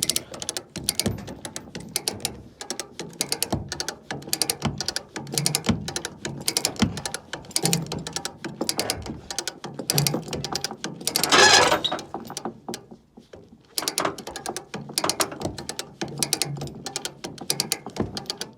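Hand come-along ratcheting under load: repeated sharp ratchet-and-pawl clicks in runs as it winches a heavy truck axle along. About eleven seconds in, a louder harsh sound lasts about a second.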